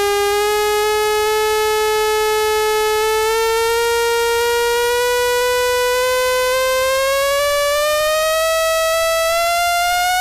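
Synthesized water-eject tone for earphone and AirPods speakers: a single steady electronic tone rich in overtones, gliding slowly upward in pitch, the rise quickening after about six seconds. The tone is meant to shake trapped water out of the speaker grills.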